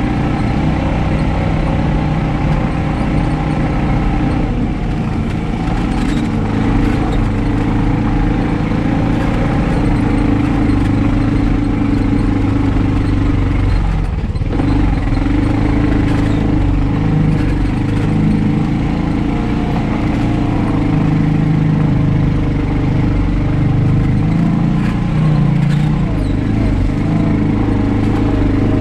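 2021 Honda Pioneer 520 side-by-side's single-cylinder engine running steadily while under way, with a brief dip about halfway through.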